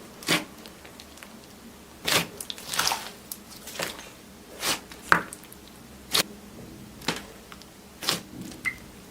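Slime being handled and pressed, giving a run of short, separate squishes and crackles about once a second.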